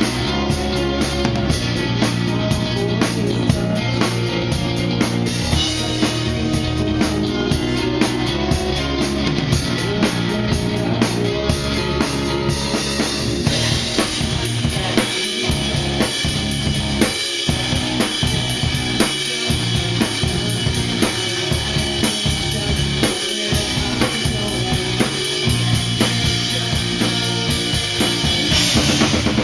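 Rock band playing a song during a sound check, heard from beside the drum kit, so the drums are loudest: a steady beat of kick, snare and hi-hat over bass and guitar. From about halfway a brighter cymbal wash sets in.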